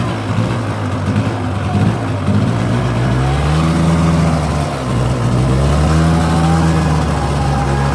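Polaris Sportsman 400 ATV's two-stroke engine running under throttle. Its pitch climbs a few seconds in, dips briefly, then rises again and holds steady near the end.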